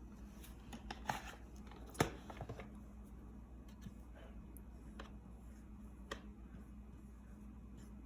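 Faint, scattered scratching strokes and light taps of a marker drawing leaves on a whiteboard, over a steady low hum.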